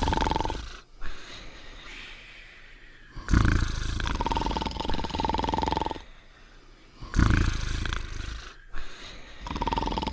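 Cartoon snoring: loud, rasping snores with a low rumble, each carrying a steady high whistle partway through, repeating about every four seconds with quieter breaths between.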